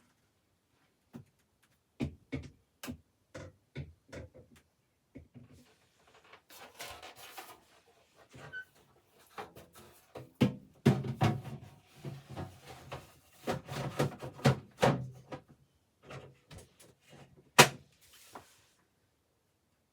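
A series of irregular knocks and thunks, with short bouts of scraping and rustling between them, busiest in the second half, the loudest a single sharp knock near the end: things handled while a camper refrigerator is cleaned out.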